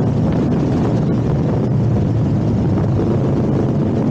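Steady wind buffeting the microphone over the low rumble of a motorcycle on the move.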